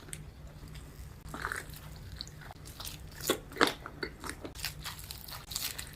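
A person biting into crispy fried chicken and chewing, with irregular crunches, two louder ones a little after halfway through.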